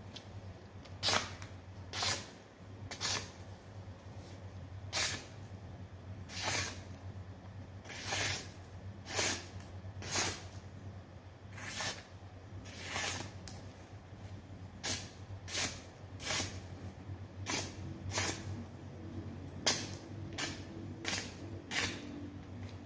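A freshly sharpened cleaver slicing through a hand-held sheet of paper in a sharpness test: short papery cuts about one a second, coming faster near the end.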